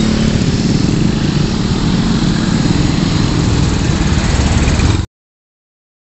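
Engine running steadily close by amid road traffic, then cut off abruptly about five seconds in.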